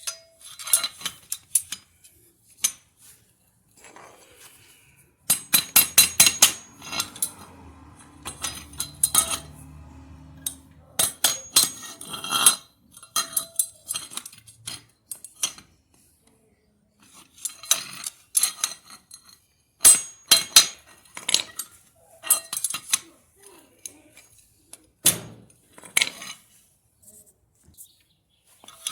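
Sharp metallic clinks and taps in irregular clusters: a long screwdriver striking the metal of a Whirlpool top-load washer's brake assembly to knock a part out.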